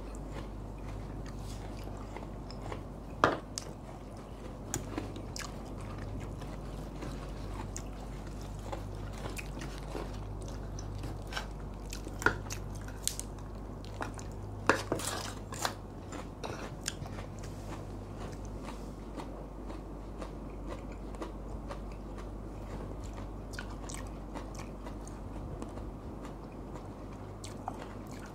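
People eating at a table: chewing and crunching picked up close on a clip-on microphone, with a few sharp clicks of spoons on plates, over a steady low hum.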